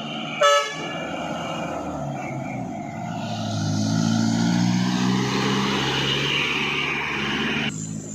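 A truck horn gives one short toot, then a Toyota Dyna truck's diesel engine labours up a climb, its note rising and growing louder from about three seconds in. The sound cuts off abruptly near the end.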